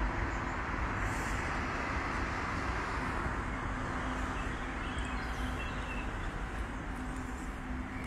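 Steady road traffic noise, an even rush with a faint low hum running through it.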